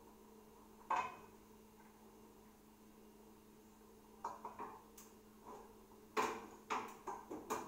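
Wooden spatula and stainless steel bowl knocking and scraping against a wok: one sharp clank about a second in, then a run of short clatters in the second half, over a steady low hum.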